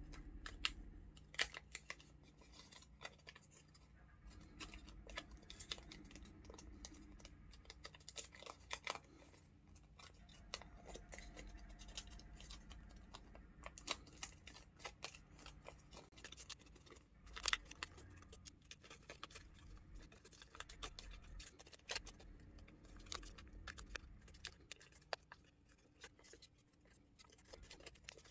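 Colored origami paper being folded and creased by hand, flaps tucked inside the fold: faint, scattered crinkles and rustles.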